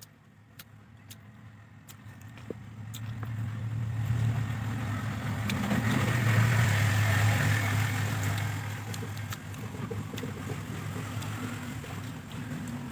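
Low rumble of a motor vehicle's engine, swelling to its loudest about six seconds in and then easing off, with a few light clicks in the first seconds.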